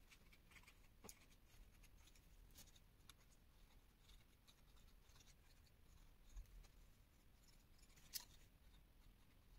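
Near silence, with a few faint rustles and small ticks from a paper strip and a small glue bottle being handled as glue is dabbed onto the cut paper tabs.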